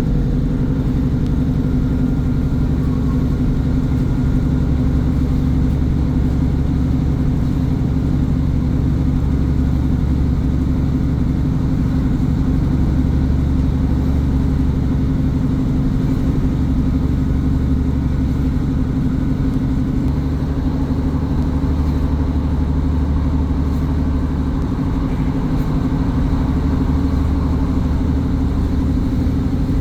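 Class 150 Sprinter diesel multiple unit's underfloor Cummins six-cylinder diesel engine running steadily under way, a constant low engine note with little change.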